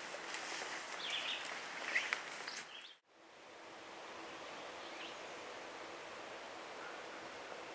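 Rustling of brush as someone moves through a dense alder thicket, with a few short bird chirps. The sound cuts out about three seconds in, and a steady quiet outdoor background follows, with a faint bird call.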